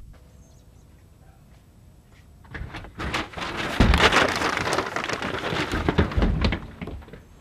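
A loud, crackling clatter of scuffling and falling debris as a box is tipped over a person's head and he is wrestled at a doorway. It starts about two and a half seconds in and dies away near the end.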